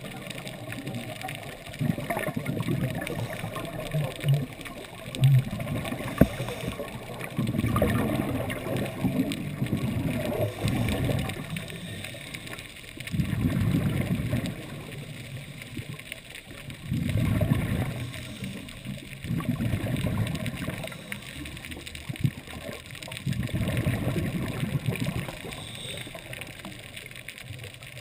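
Scuba regulator exhaust bubbles heard underwater through a GoPro dive housing: a muffled, low, gurgling burst with each exhalation, about every three to four seconds, over a steady hiss.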